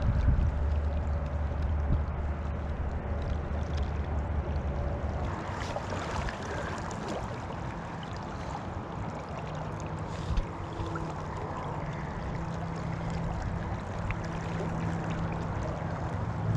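River current flowing steadily over a rocky bed, with one brief tap a little over halfway through.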